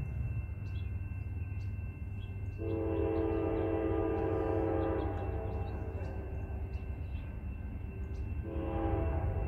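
Air horn of an approaching Norfolk Southern freight train's lead diesel locomotive, still out of sight. It sounds a chord, one long blast about three seconds in and another starting near the end, over a steady low rumble.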